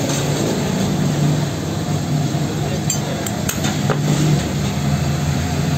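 Light clinks of wooden handle scales and band saw blade pieces being handled and set down, a few sharp ones between about three and four seconds in, over a steady workshop hum.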